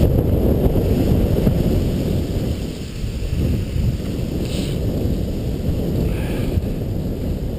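Wind buffeting a camera microphone on a skier gliding downhill: a steady low rumble that eases slightly about three seconds in.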